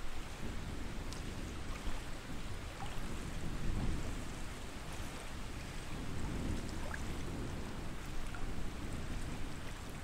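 Steady rushing water noise with a deep rumble underneath and a few faint ticks scattered through it.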